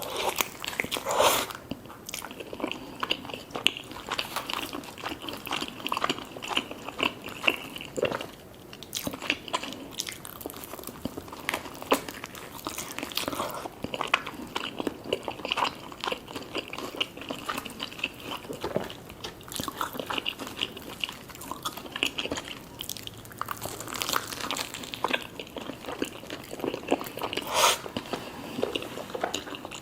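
Close-up eating sounds: crunchy bites and chewing of fried chicken and French fries, a steady run of crackly crunches with a few louder bites.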